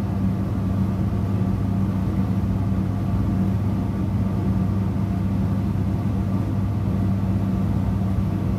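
Steady low hum of a running machine, with a higher overtone above it, unchanging.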